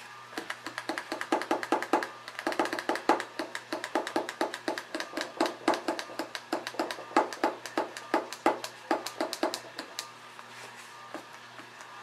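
Rapid, uneven taps of a wadded paper towel dabbing paint onto a stretched canvas, about four or five a second, stopping near the end.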